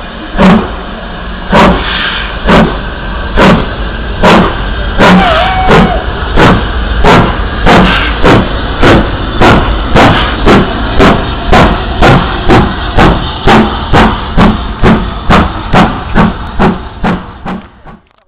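Steam locomotive 70013 Oliver Cromwell, a two-cylinder BR Standard Class 7 'Britannia' Pacific, chuffing hard as it works a train away, its exhaust beats quickening steadily from about one a second to more than two a second over a low rumble. The sound fades out near the end.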